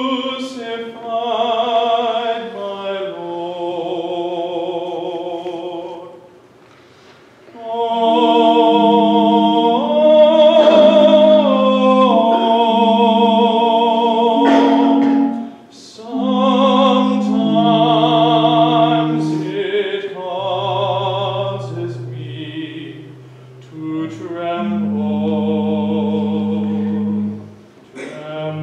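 Voices singing slow phrases with long held notes and vibrato over sustained accompanying chords. The music pauses briefly about six seconds in, again near the middle, and just before the end.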